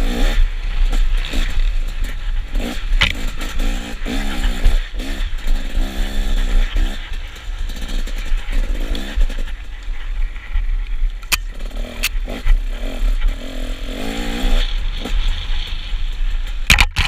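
Dirt bike engine revving up and down repeatedly as the throttle is worked along a rough wooded trail. A sharp knock comes near the end.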